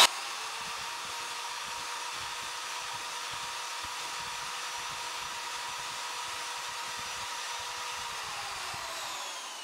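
Electric drill spinning a Jiffy mixer paddle in a bucket holding clay, running at a steady whine for about eight seconds. It is then released, and the pitch falls as it spins down.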